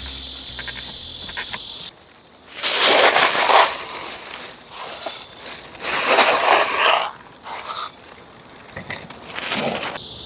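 A steady high insect chorus cuts off about two seconds in. Then dry cat kibble rattles into a ceramic bowl in several loud bursts, with plastic bag rustling. Near the end the insect buzz returns.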